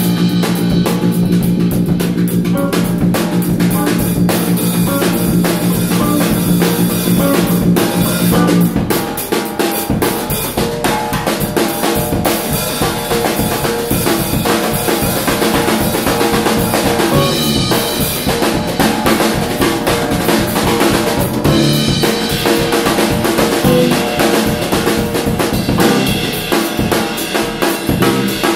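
A live trio of drum kit, electric bass and hollow-body electric guitar playing an instrumental groove, with busy snare, rimshot and bass-drum hits throughout. A long held low note sounds through the first nine seconds or so, then stops.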